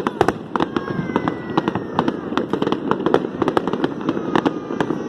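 Fireworks display: aerial shells bursting in a rapid, irregular barrage of sharp bangs and crackles, several a second.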